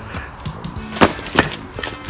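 Background music, with two sharp knocks about a second in, the second about half a second after the first.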